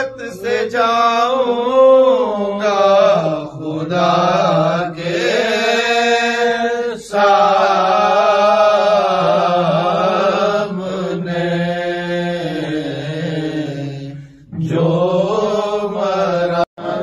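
A man chanting a marsiya, an Urdu elegy for the martyrs of Karbala, in long held phrases whose pitch wavers, with short breaths between phrases.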